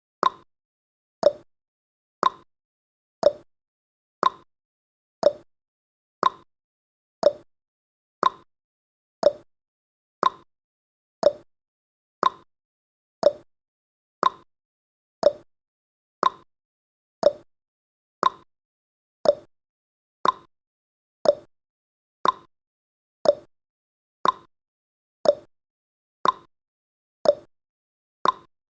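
Countdown timer's clock-tick sound effect: one short, sharp tick every second, alternating higher and lower in pitch like a tick-tock.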